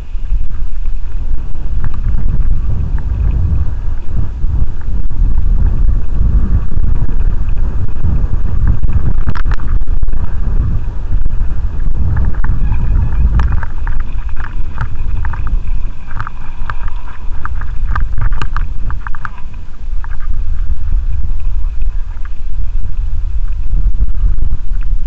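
Wind buffeting the microphone over the rumble of tyres rolling fast on a gravel road. In the middle stretch there is a run of sharp rattling clicks.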